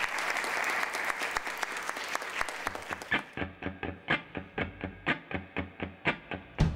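Audience applauding. About three seconds in it cuts sharply to music: a steady run of picked notes, about four or five a second, with drums coming in right at the end.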